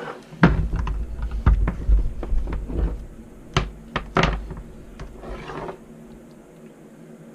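Plastic parts of a stock-tank de-icer being handled and fitted together: a series of sharp knocks and clicks over the first four seconds with a low rumble beneath the first few, then a brief rustle.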